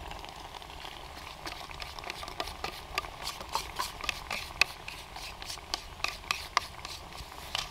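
A spoon scraping and clicking against a metal cooking pot as crème fraîche is spooned into a stew: irregular sharp clicks and short scrapes, several a second, the loudest a little past halfway.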